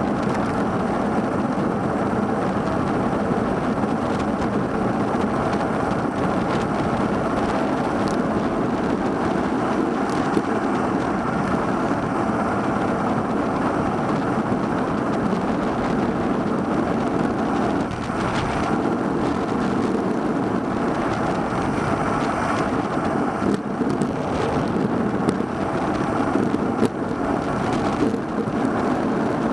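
Steady rush of wind and road noise on the microphone of a handlebar-mounted Cycliq Fly 12 camera while the bicycle rolls along, with a few brief clicks and knocks later on.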